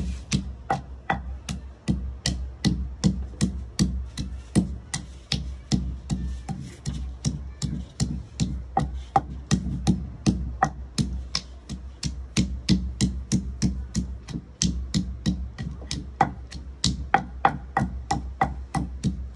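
Danda (wooden pestle) pounding almonds, poppy seeds and cardamom in a dauri mortar for badam ragda: steady, even knocks about three a second.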